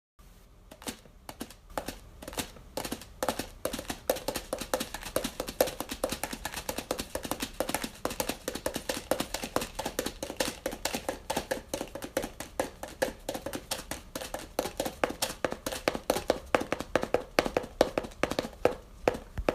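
Rapid, irregular tapping: many short, sharp, hollow-ringing strikes, several a second, in a small room.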